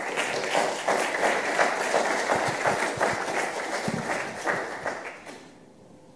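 Audience applauding: a dense patter of many hands clapping that fades out near the end.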